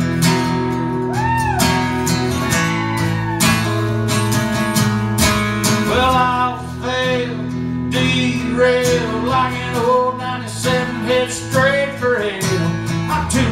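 Two acoustic guitars playing an instrumental break in a country song: steady strummed chords under a melody line with bending notes, which grows busier about two-thirds of the way through.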